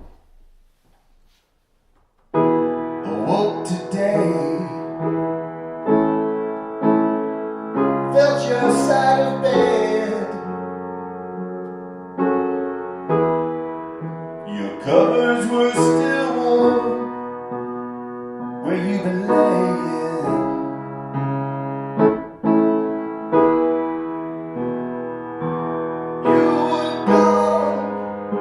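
Instrumental introduction to a slow song: sustained keyboard chords changing every few seconds, starting about two seconds in after a brief quiet.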